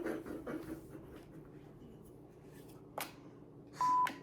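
Light handling and rubbing noises, a sharp click about three seconds in, then a short, loud, steady electronic beep near the end.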